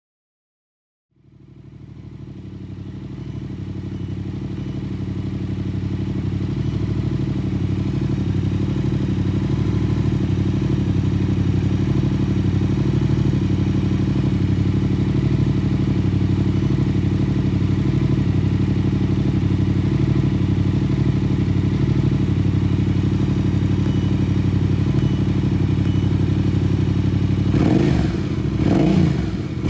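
Yamaha Ténéré motorcycle engine idling steadily while still cold, fading in over the first few seconds. Near the end the throttle is blipped and the engine revs up unevenly.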